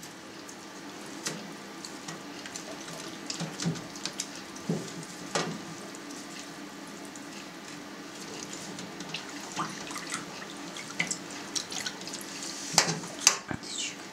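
Wet hands working in a stainless-steel vat of whey, with splashing and dripping liquid as cheesecloth is folded over cheese curd in a submerged mold. There are scattered small splashes and clicks throughout, with a few louder ones near the end.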